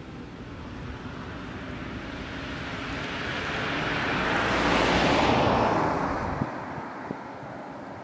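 A vehicle passing by: a rush of tyre and road noise that swells to a peak about five seconds in, then fades away.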